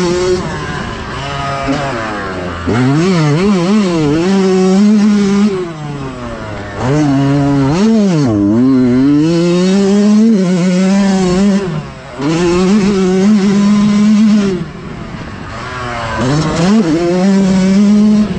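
Yamaha YZ125X's single-cylinder two-stroke engine, heard from on the bike, revving hard and shutting off again and again. Its pitch sweeps up under throttle and falls away several times as the bike drives out of one turn and backs off into the next.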